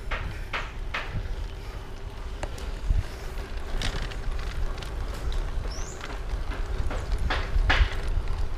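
Mountain bike rolling along a village road, heard from a camera on the bike: a steady low rumble of wind on the microphone and tyre noise, broken by several sharp clicks and rattles from the bike. A short high chirp about six seconds in.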